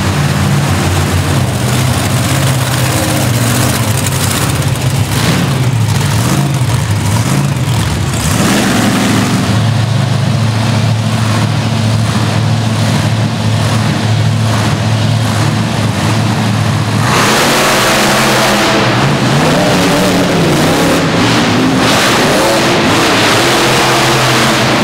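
Big monster truck engines idling and revving. About two-thirds of the way in, one opens up to a louder, harsher full-throttle run.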